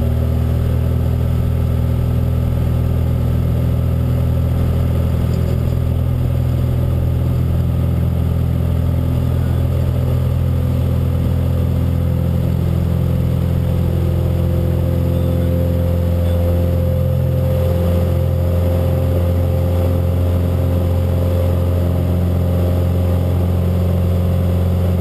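Cessna 182RG's six-cylinder Lycoming O-540 engine and propeller running steadily at takeoff power during the takeoff roll, heard from inside the cockpit.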